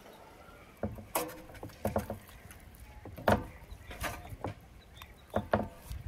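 Chef's knife cutting cooked lamb off the bone on a large metal tray: irregular knocks and taps of the blade and bones against the tray, starting about a second in, some of them ringing briefly.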